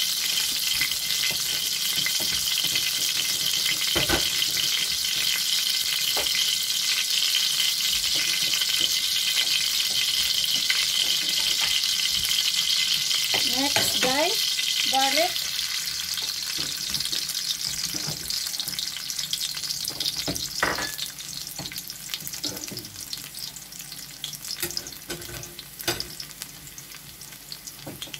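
Hot cooking oil sizzling in a wok, a steady hiss that dies down gradually over the second half, with a few sharp clicks.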